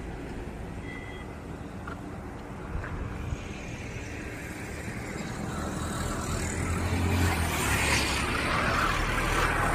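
Road traffic with a motor vehicle's engine: a steady rumble that grows louder over the second half.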